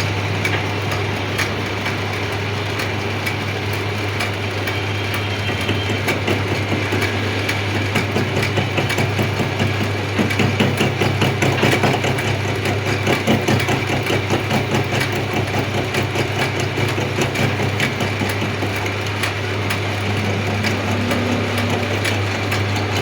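Lathe running with a steady low hum. Through the middle stretch a fast, rhythmic clatter sits over it and is the loudest part.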